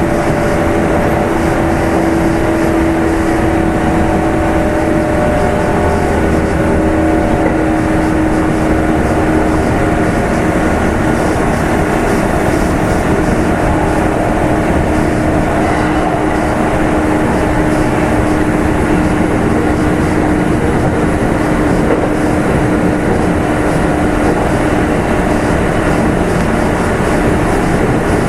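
Running sound of a Kintetsu 2800 series electric train heard aboard its motor car at speed: a steady hum from the traction motors and gears over continuous wheel and rail noise, with a few held tones that drift slightly in pitch.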